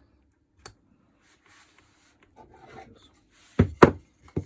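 Faint handling and rubbing, then a cluster of sharp clicks near the end as the DeWalt DCH333 cordless rotary hammer's mode selector is turned from drilling to hammer mode, with the motor stopped.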